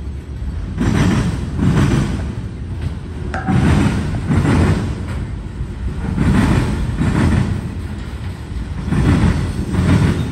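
A passing freight train of autorack cars. The wheels rumble and clack over the rail joints, two clacks close together about every two and a half to three seconds as each pair of trucks goes by.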